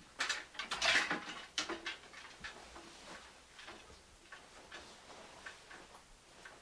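A jacket taken off a coat rack and pulled on: a burst of fabric rustling and clattering in the first two seconds. After it, a clock ticking steadily, a little under two ticks a second.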